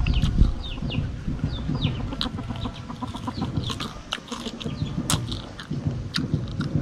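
Close-up chewing of crispy fried chicken, with scattered crunches and mouth noises. Birds chirp in many short, falling notes around it.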